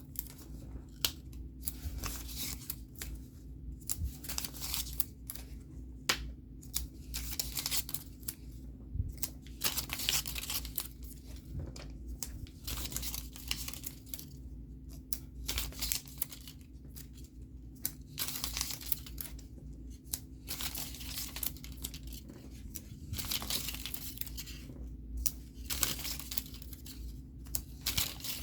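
Scratch-off stickers being peeled from their backing sheet one after another: a quick ripping sound every second or two, with soft paper handling in between.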